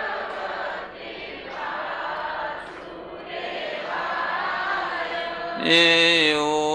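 A gathering of many voices chanting a Hindu mantra together in a slow, blended unison. Near the end a single male voice, close to the microphone and much louder, comes in on a held note to lead the next line.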